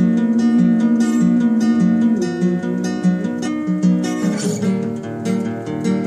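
Acoustic guitar strummed in a steady rhythm, playing chords.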